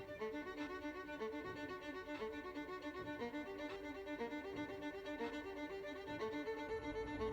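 Background music led by violin, playing a quick run of short notes.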